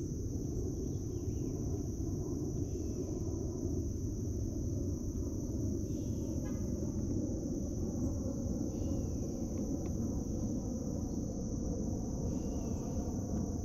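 Steady high drone of insects over an even low rumble, with a couple of faint clicks.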